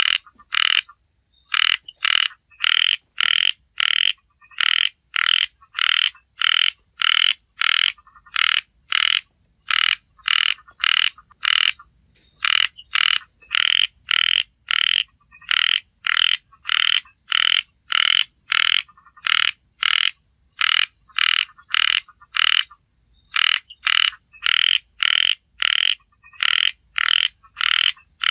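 Small frog calling over and over: short, loud croaks about two a second, in runs broken by brief pauses.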